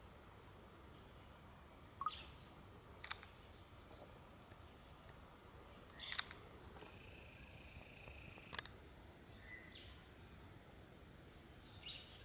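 Faint, quiet forest ambience with a few short, high bird chirps and several sharp clicks; a thin, steady high whine runs for about two seconds in the middle.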